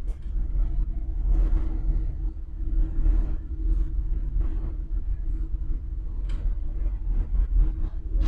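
Cabin noise of an electric minibus driving over stone paving: a heavy low rumble from the tyres, with irregular rattles and knocks from the body, over a steady hum.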